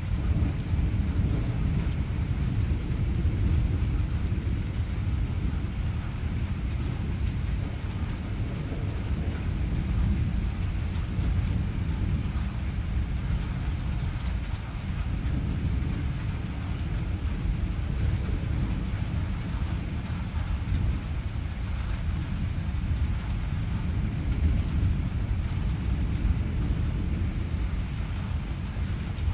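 Rain in a thunderstorm with a continuous low rumble of thunder, no sharp cracks.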